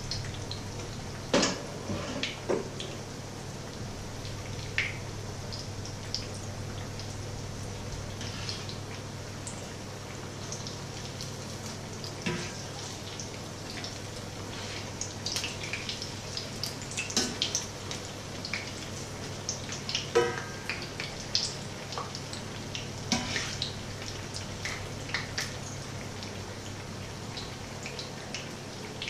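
Batter patties frying in shallow oil in a pan: steady sizzling with irregular crackles and pops, busiest past the middle. A few sharp metal clicks of tongs and spatula against the pan, over a steady low hum.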